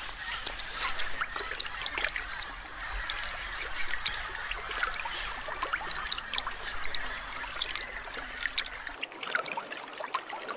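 Shallow river water splashing and trickling as a large green anaconda moves through it, with many short ticks and chirps and honking bird calls in the background.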